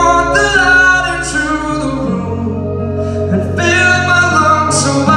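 Live rock band playing a song: a male lead vocal over acoustic and electric guitars, bass guitar and drums.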